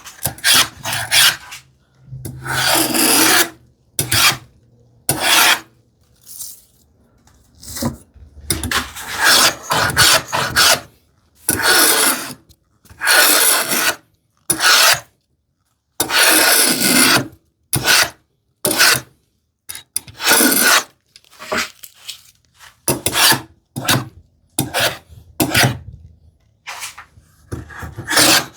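Hand plane taking shavings off a wooden board in a string of hissing strokes, each about half a second to a second and a half long with short pauses between, and a few light knocks in the gaps.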